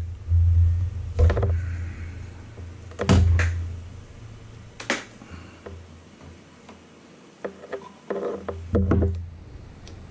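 A few sharp clicks and knocks from handling a sheathed cable and pliers, over a low hum that fades after the first few seconds and returns briefly near the end.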